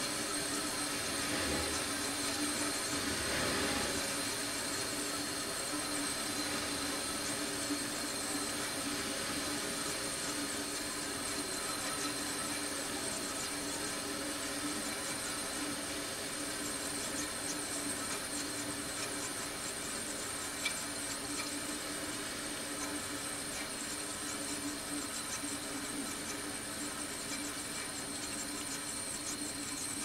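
Hampton Bay BHDH2500AS1 dehumidifier running steadily: its fan and reciprocating compressor make a low hum over an even hiss, with a thin high whine throughout. A single faint tick about two-thirds of the way through.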